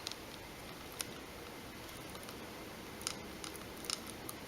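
A few faint, short clicks and taps of small phone parts being handled and fitted back into place, over a steady hiss.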